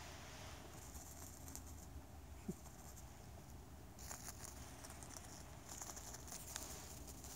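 Faint rustling and light crackling in dry grass and fallen leaves, busier in the second half, with one short sharp tick a little over two seconds in.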